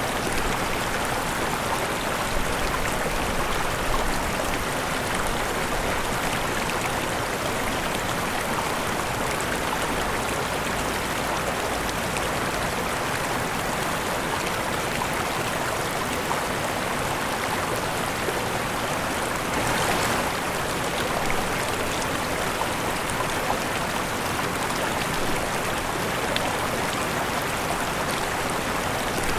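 Waterfall: steady rushing and splashing of falling water, with a brief swell about twenty seconds in.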